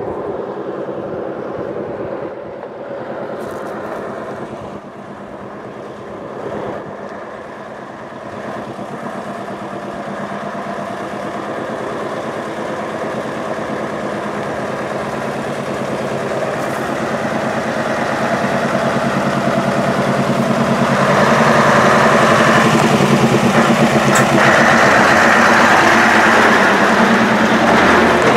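Scania 144L 460's 14-litre V8 diesel engine pulling a loaded container trailer at low speed on a rough gravel track. It grows steadily louder as the truck approaches and is loudest in the last several seconds as the rig passes close by.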